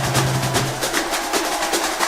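Batucada drum ensemble playing a fast rhythm: a dense stream of rapid drum and woodblock-like strokes, with a low bass drum note ringing in the first half.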